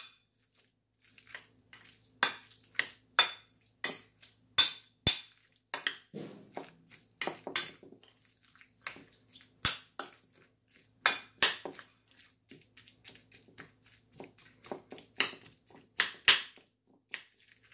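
Metal spoon stirring tuna salad in a ceramic bowl, clinking and scraping against the bowl in irregular sharp clinks, up to about two a second.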